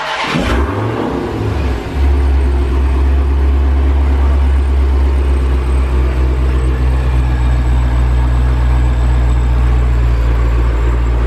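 A Dodge Challenger SRT Hellcat's supercharged 6.2-litre HEMI V8 starts up. Its speed wavers for a moment, and about two seconds in it settles into a steady idle. The odd misfire-like noise the owner has been chasing is not present on this run.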